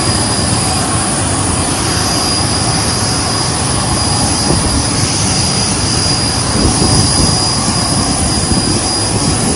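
Steady jet aircraft turbine noise: a broad, even rush with a thin high whine held at one pitch.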